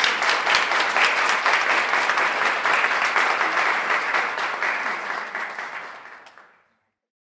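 Audience applauding, dying away near the end and stopping about six and a half seconds in.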